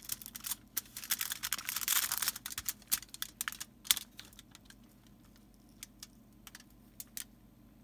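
Soldering iron melting solder and flux at a copper-wire-to-aluminium-foil joint: a quick run of small irregular crackles and pops, with a short sizzling hiss about two seconds in. The pops thin out to a few scattered clicks over the last seconds.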